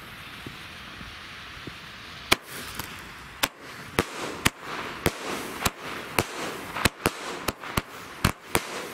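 Small Lesli 'Golden 10' firework battery firing: after about two seconds, a quick series of sharp bangs begins, roughly two a second, as its shots launch and burst.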